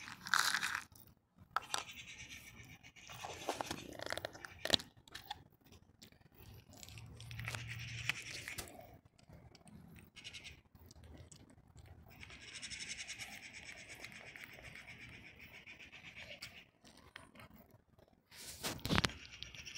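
A domestic cat eating dry kibble: irregular crunching and clicks, with a longer stretch of steady crunching past the middle.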